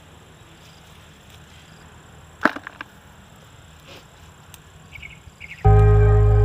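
Hand-picking of green bird's eye chilies, with one sharp snap of a stem being pulled off about two and a half seconds in and a few lighter clicks after it. Near the end, loud guitar music comes in and covers everything.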